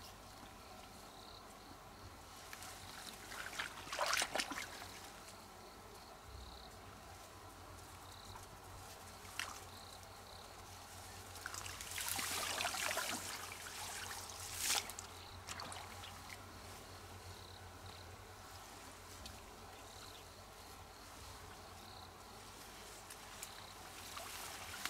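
Water trickling and splashing in short spells, the longest about halfway through. A faint high insect chirp repeats about once a second.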